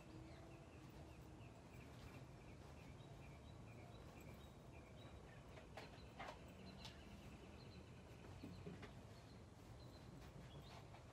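Near silence: faint chirping of small birds over a low background hum, with a few soft rustles of quilt fabric being smoothed by hand about six to seven seconds in.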